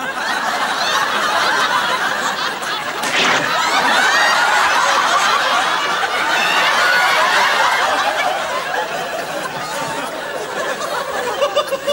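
Studio audience laughing: a broad wave of many voices laughing together that swells a few seconds in and eases off near the end.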